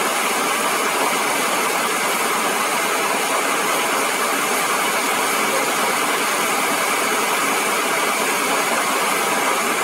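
A vehicle engine idling steadily under an even, unbroken rushing noise.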